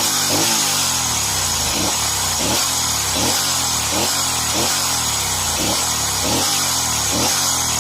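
Norton Commando 961's air-cooled parallel-twin engine running steadily, with a regular pulse a little more than once a second.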